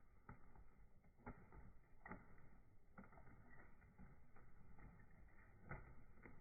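Near silence: a faint low rumble with scattered faint clicks.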